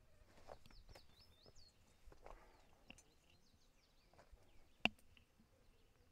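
Faint bird chirps, short high whistles mostly in the first two seconds, over a quiet outdoor background, with scattered light clicks and one sharp click about five seconds in.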